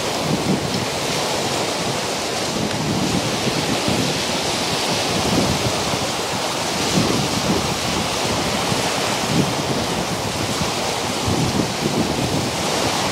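Choppy, wind-driven lake waves breaking on a rocky shore, a steady wash, with wind buffeting the microphone in irregular gusts.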